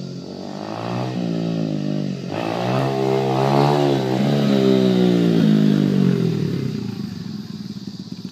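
Honda XR100R dirt bike's small single-cylinder four-stroke engine revving hard as the bike accelerates, its pitch dipping briefly about two seconds in, then climbing again. Near the end it winds down and gets quieter.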